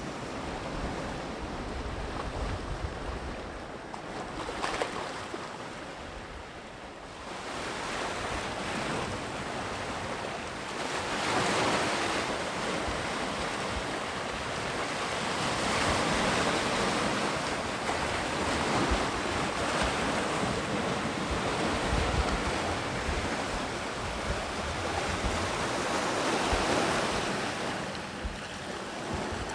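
Sea waves breaking and washing on the shore, the surf swelling and easing in slow surges, with gusts of wind buffeting the microphone.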